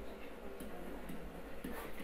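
A few faint, irregularly spaced clicks over a low steady hum.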